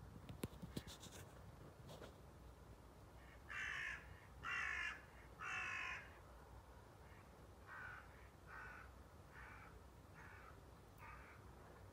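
A crow cawing: three loud caws about a second apart, then a run of five or six fainter caws at the same pace. There are a few faint clicks near the start.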